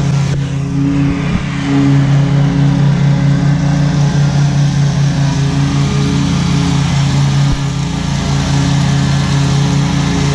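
Commercial zero-turn lawn mower engine running steadily at mowing speed.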